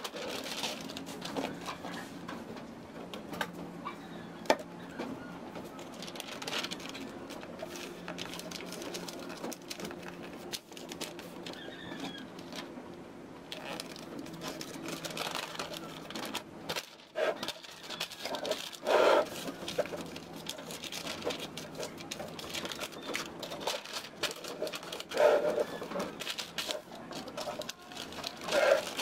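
Wrapping paper rustling and crinkling as it is folded and smoothed by hand around a canvas, with a few louder crinkles about two-thirds of the way through and near the end.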